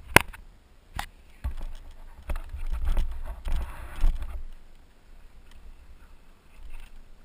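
Handling noise on a GoPro action camera's microphone: a few sharp knocks, then about two seconds of low rumbling and rustling that dies down.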